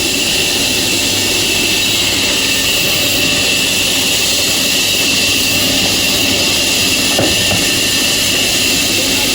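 Sawmill machinery running with a loud, steady noise, an even hiss and whine that does not let up.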